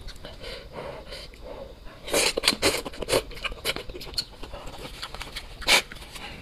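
A person slurping and chewing noodles, with wet mouth clicks, then a run of loud slurps about two seconds in and one more short loud slurp near the end.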